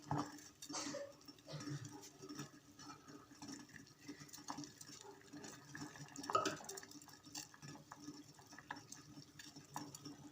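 Quiet kitchen sounds: faint scattered ticks and taps as guava leaves are put into a pan of water simmering on a low gas flame, with one louder knock about six seconds in.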